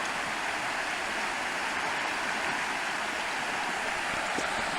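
Steady rush of running water, an even hiss with no pitch to it.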